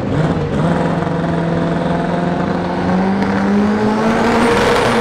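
Front-wheel-drive drag car's engine held at steady high revs, its pitch climbing slightly a little past halfway.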